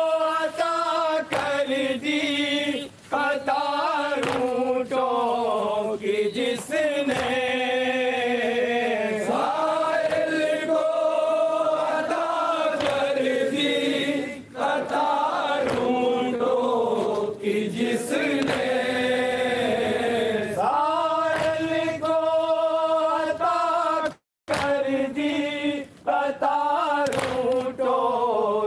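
Men chanting a nauha, a Shia mourning lament, in a melodic chorus with long held, wavering notes. The sound cuts out briefly about four seconds before the end.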